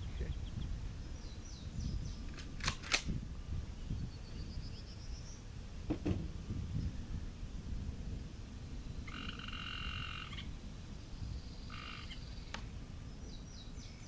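Outdoor field ambience: short animal calls and chirps over a steady low rumble, with a call lasting about a second and a half about nine seconds in and two sharp clicks about three seconds in.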